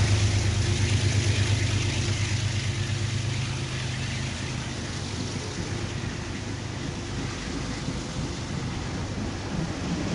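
Passenger train passing close by: the low hum of the locomotive fades over the first few seconds, leaving the steady rushing noise of the coaches' wheels on the rails, slowly getting quieter.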